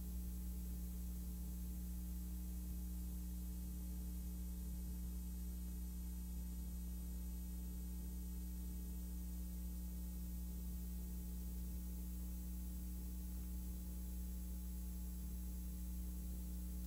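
Steady low electrical hum with faint hiss, unchanging throughout: the soundtrack of a film shot silent holds only transfer noise.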